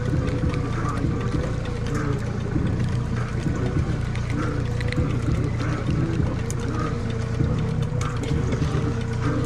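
A boat's outboard motor runs steadily at low trolling speed while a trolling reel is cranked in against a hooked fish. The reel gives a faint regular tick about once a second.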